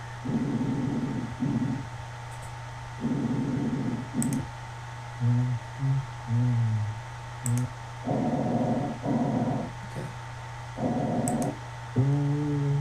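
Short recorded lung-sound clips played back one after another by an auscultation training program, several breathy segments with a few with a pitched, musical tone, each started by a faint mouse click.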